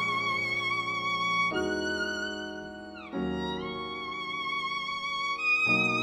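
Violin holding long melody notes with vibrato, sliding down to a lower note about three seconds in, over sustained chords from a small string and jazz ensemble.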